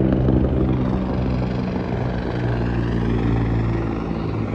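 An aircraft engine droning overhead, steady and slowly fading toward the end.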